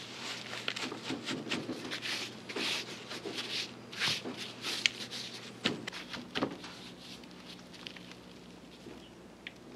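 Gloved hands rubbing and pressing a coarse dry spice rub into a raw brisket on a metal sheet pan: irregular rustling, scraping strokes with a few sharp taps, over a steady low hum.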